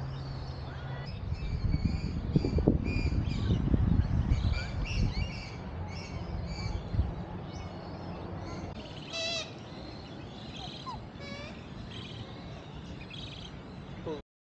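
Many birds chirping and calling, with quick trills and short whistled notes, over a low rumble that is strongest in the first half. The sound cuts off suddenly just before the end.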